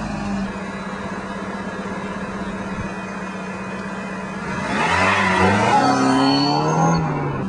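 A Mitsubishi Eclipse's engine runs steadily, then grows louder as the car drives past about five seconds in, its note falling as it goes by.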